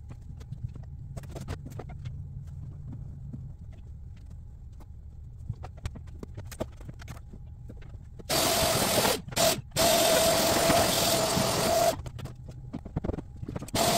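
Light clicks and knocks of tidying over a low hum, then about eight seconds in a vacuum cleaner motor starts, loud and steady with a whine. It cuts out briefly twice, stops about twelve seconds in and starts again near the end.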